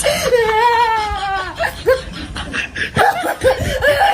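A person laughing loudly: a long high drawn-out laugh sliding down in pitch, then several short bursts of laughter.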